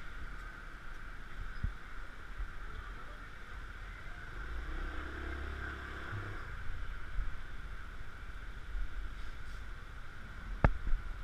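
Open-air ambience: a steady hiss, with the low rumble of a passing engine from about four and a half to six and a half seconds in, and one sharp click near the end.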